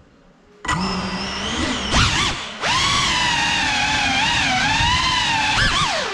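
Small FPV quadcopter's electric motors and propellers starting up suddenly with a whine about a second in, then wavering up and down in pitch with the throttle as it takes off and flies, with a brief dip about halfway.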